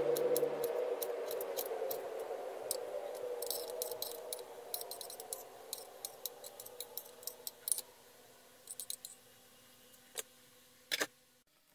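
Kitchen knife finely chopping chili peppers on a cutting board: a run of quick, sharp taps of the blade on the board, thinning out after about eight seconds, with two single taps near the end.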